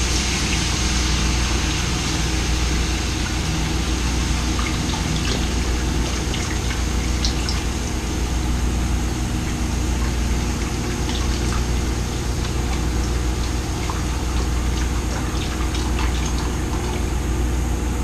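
Beef broth poured from a carton into a hot skillet, sizzling and bubbling steadily as it deglazes the pan drippings, over a steady low hum.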